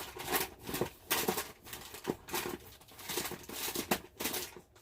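Plastic snack packaging rustling and crinkling as it is handled, in a run of irregular sharp crackles.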